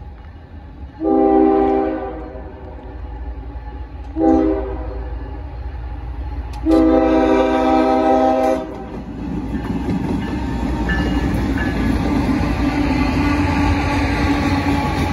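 Norfolk Southern diesel freight locomotive's multi-chime air horn sounding at a grade crossing, a long blast, a short one and a long one: the end of the standard crossing signal. Then the locomotives pass close by, engines and wheels on the rails loud and steady.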